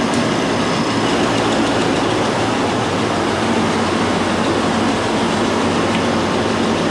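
Newly replaced Copeland semi-hermetic reciprocating compressor running after being powered back up, with the rest of the refrigeration equipment: a loud, steady mechanical rumble over a low hum.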